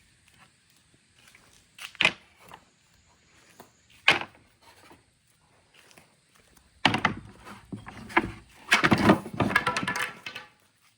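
Glass marbles knocking and rolling down the slopes of a marble run. There is a single sharp click about two seconds in and another about four seconds in, then a run of rapid clattering from about seven seconds in that is thickest near the end.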